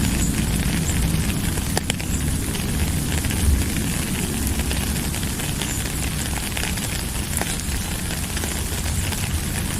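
Steady rainfall, an even hiss with many small drop ticks and crackles, over a constant low rumble.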